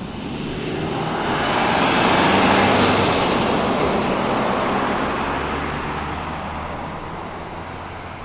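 A road vehicle passing close by: engine and tyre noise swell to a peak about two and a half seconds in, then slowly fade away.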